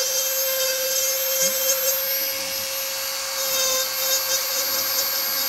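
Dremel rotary tool on a flexible shaft running at a steady speed, its small carving bit grinding into wood: a steady whine with a gritty hiss over it that shifts as the bit bites.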